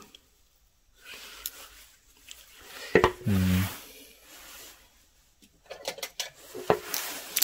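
Light metallic clinks, scraping and clicks of a Leatherman Juice XE6 pocket multitool being handled, with a tight cluster of sharp clicks near the end. A short low hum-like vocal sound comes about three seconds in.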